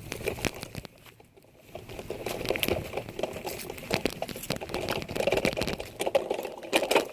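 Pieces of a smashed cardboard model camcorder being handled and crumpled: crinkling with many small clicks and rustles, which drop away briefly about a second in and then carry on.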